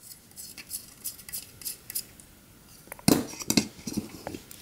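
Small metal parts of a drone frame being handled on a work surface: light clicks and clinks throughout, with a few heavier knocks about three seconds in.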